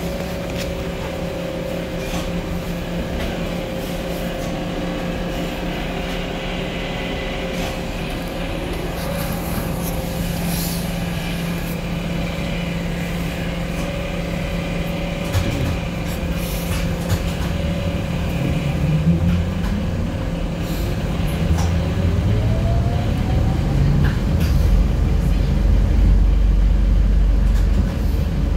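Cabin sound of a ZiU trolleybus under way: a steady electrical hum over road rumble. About two-thirds of the way through, the traction motor's whine rises in pitch as the trolleybus speeds up, and the rumble grows louder toward the end.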